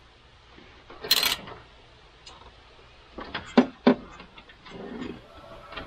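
Handling of mounting hardware: a short scraping rustle about a second in, then a few scattered clicks and two sharper knocks.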